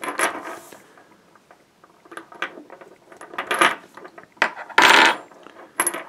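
Antique Mühlenfeld iron leg shackle being unlocked and opened: scattered metal clicks and clinks from the key and cuff, and a short metal scrape near the end.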